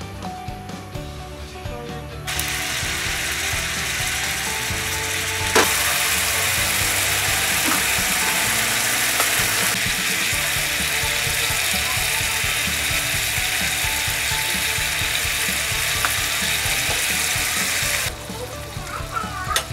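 Ground meat sizzling as it fries in a cast-iron skillet while a wooden spatula stirs it. The sizzle starts abruptly about two seconds in and stops near the end, with one sharp knock of the spatula against the pan about five seconds in.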